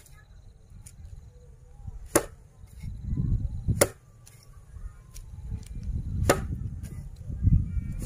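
A bundle of dried grass stalks swung overhead and whacked down against the ground, sharp whacks about every two seconds, with a low rumble between the strikes.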